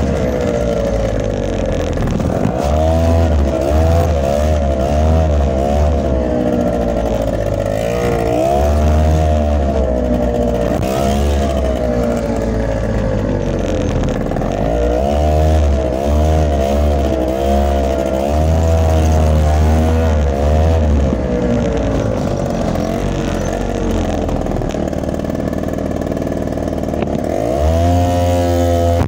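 Motorcycle engine running with the throttle blipped over and over, its pitch rising and falling every second or so over a steady low rumble.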